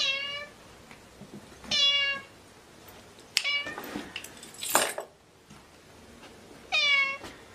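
Orange tabby cat meowing three times in short, clear calls: at the start, about two seconds in, and near the end. Between the second and third meows come a few sharp clicks and a short noisy burst.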